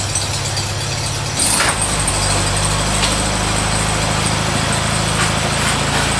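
VW Beetle's air-cooled flat-four engine idling steadily after being started, a step louder and fuller about a second and a half in.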